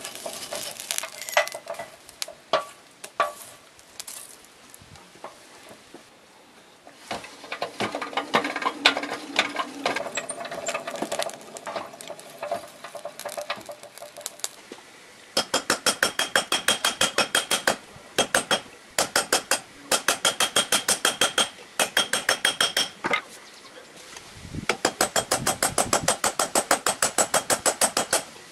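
Charcoal forge fire crackling, with scattered metallic clinks, through the first half. Then rapid hammer blows on hot steel on an anvil, about five a second, each one ringing, in four bursts with short pauses.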